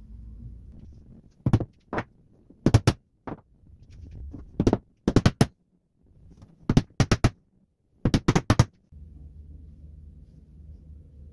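Hammer driving small nails into a fibreboard frame: sharp taps in quick groups of two to five, about fifteen strikes in all. The hammering stops about nine seconds in, leaving a low steady hum.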